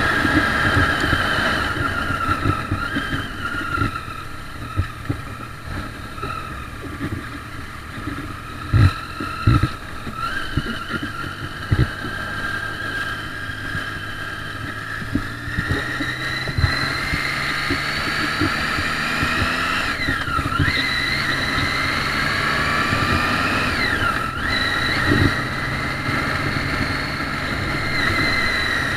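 Triumph Street Triple's inline three-cylinder engine heard from on the bike with wind rush. It runs softly on a light throttle, then accelerates with a rising note that drops sharply twice at upshifts. A few brief thumps come early on.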